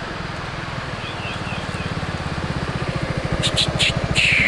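Yamaha XMAX 250 scooter's single-cylinder engine running with an even low pulse, growing louder as it rides up and closes in. A few short high clicks come about three and a half seconds in, and a short high squeal falls in pitch near the end.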